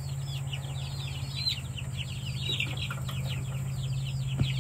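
A flock of young chickens peeping: many short, high chirps that fall in pitch, several a second, over a steady low hum.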